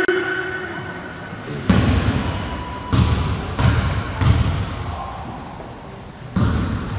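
Basketball bouncing on a hard gym floor: one dull thump under two seconds in, three more about two-thirds of a second apart, and a last one near the end.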